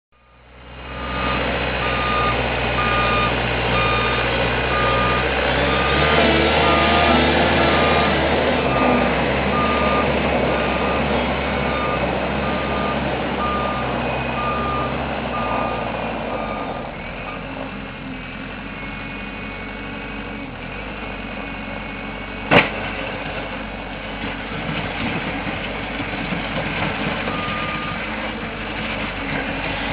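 Caterpillar 908H compact wheel loader's diesel engine running steadily while it moves with a folding V snow plow, its reversing alarm beeping at a steady rhythm for the first half and briefly again near the end. A single sharp knock about two-thirds of the way through is the loudest sound.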